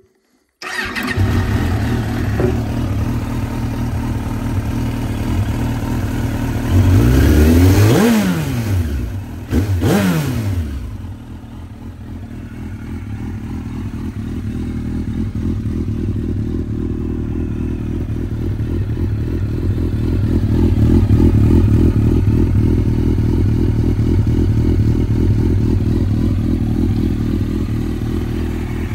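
1995 Suzuki GSX-R 1100's liquid-cooled inline-four idling through a brand-new full Yoshimura RS-3 stainless exhaust system. The engine is revved twice, about seven and ten seconds in, each time rising and falling back quickly, then settles back to a steady idle.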